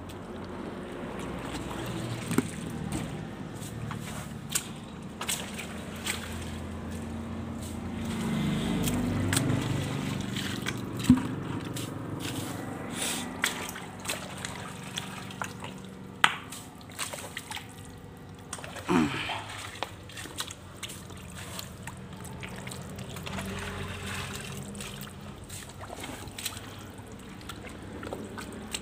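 Shallow muddy canal water sloshing and trickling as hands scoop and dig in the mud and water, with scattered sharp splashes and knocks, busiest about a third of the way in.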